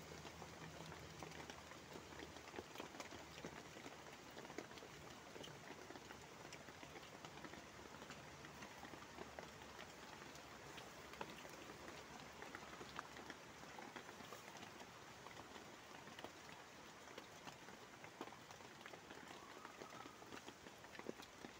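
Rain falling on a plastic tarp shelter: a faint, steady patter of many small drop ticks.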